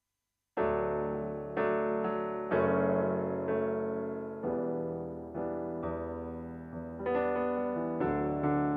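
Piano playing the song's instrumental intro: slow chords struck about once a second, each ringing and fading before the next, starting about half a second in.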